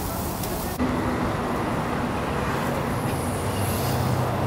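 Steady rushing background noise with no distinct events, changing abruptly about a second in.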